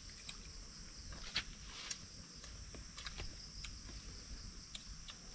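Steady high-pitched insect chorus, with scattered light clicks and ticks about one or two a second, a little louder about a second and a half in.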